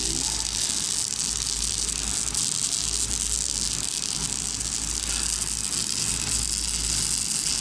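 Robotic welding arc hissing steadily, with a low hum underneath.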